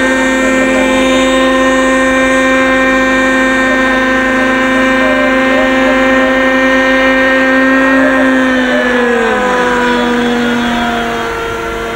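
Radio-controlled scale Jet Ranger-style model helicopter's engine running in flight with a steady whine, its pitch dropping lower about nine seconds in.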